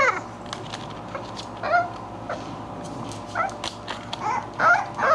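English bulldog puppies giving short high-pitched yips and whimpers while they play, each call falling in pitch. There are about half a dozen, with the loudest cluster near the end.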